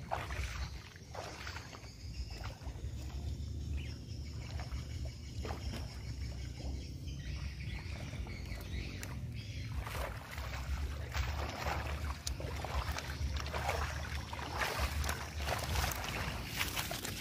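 Footsteps wading and splashing through shallow lake water over a steady low wind rumble on the microphone, the splashing getting busier in the second half as a keepnet full of fish is carried back through the water.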